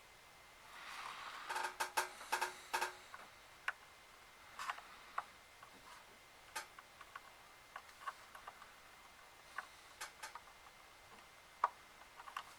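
Small, faint plastic clicks and taps as a keyboard ribbon cable is fitted into its flip-tab connector inside a laptop. There is a quick cluster of clicks about two seconds in, then single clicks every second or so.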